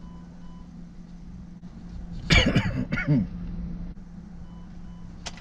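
A person coughs about two seconds in, over a steady low hum. Faint short electronic beeps come near the start and again near the end, followed by a sharp click.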